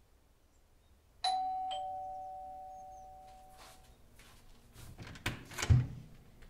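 Two-note ding-dong chime: a higher tone, then a lower one about half a second later, both ringing and fading away over about two seconds. Near the end come two sharp knocks, the second louder.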